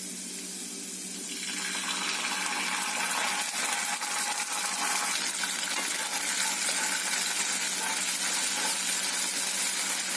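Chopped garlic and ginger with red chilli sauce sizzling in hot oil in a kadai; the sizzle grows louder about a second and a half in.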